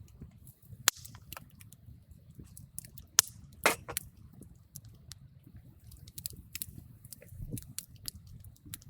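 Campfire crackling: scattered sharp pops and snaps over a low, steady rumble of flame. Two loud pops come about one and three seconds in, followed by a brief hiss just under four seconds in.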